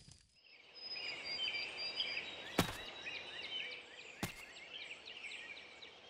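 Soundtrack forest ambience of many small birds chirping and twittering, with two sharp clicks, one about two and a half seconds in and one just past four seconds.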